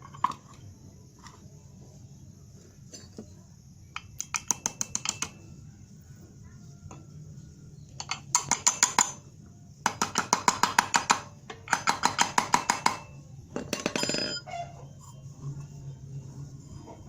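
Ratchet wrench turning in five short bursts of rapid metallic clicks, a fastener being worked on the pulley mount of a grass-cutter engine.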